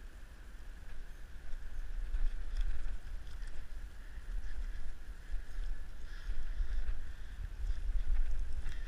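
Rustling and low rumble of handling noise as a freshly shot red deer carcass is worked on and turned over on wet grass, the rumble swelling and fading unevenly, over a steady high hiss.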